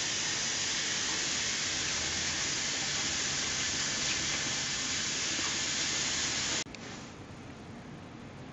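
Water poured from a plastic beaker into a plastic tub, a steady rushing, splashing noise that cuts off suddenly about six and a half seconds in.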